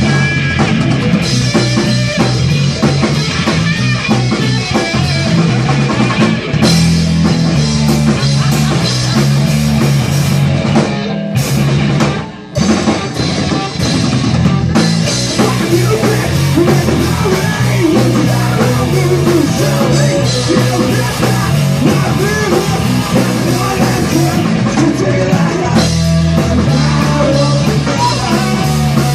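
A rock band playing live, with drum kit, electric guitar and bass, and a brief break about twelve seconds in before the band comes back in.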